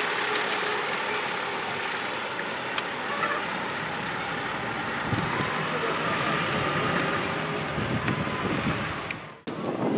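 Fire engine driving slowly away, its engine running steadily, with wind buffeting the microphone in the second half. The sound breaks off suddenly shortly before the end.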